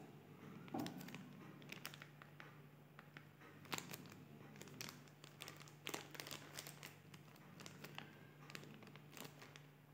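Faint handling noise: irregular small clicks and crinkles, scattered every second or so, over a low steady hum.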